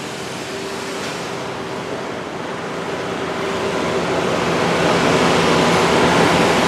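Steady mechanical hum with a rushing noise behind it, the din of a building site under construction, growing gradually louder.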